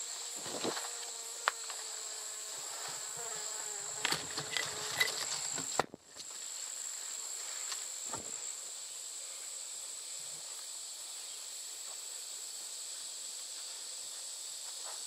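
Steady high-pitched drone of insects calling in the woods, with a few light knocks and rustles in the first several seconds. The sound briefly cuts out about six seconds in, then the insect drone carries on alone.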